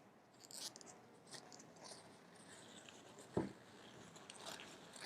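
Faint rustling of tissue paper and small clicks as a puzzle cube is handled, with one dull thump about three and a half seconds in.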